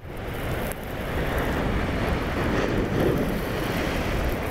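Wind rushing and buffeting across the microphone outdoors, a steady noise that swells slightly over the first second.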